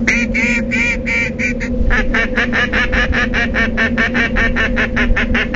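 Duck call blown in a quacking sequence: about six slower, longer quacks, then a fast run of short quacks at about seven a second. A steady low hum runs underneath.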